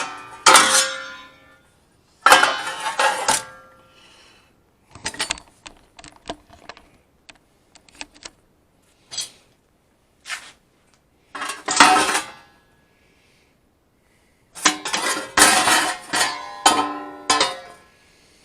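Sheet steel and a sheet-metal brake clanking, with the metal ringing after each hit, as a patch panel is bent and handled. Several loud clanks come in clusters, with lighter taps and ticks between them.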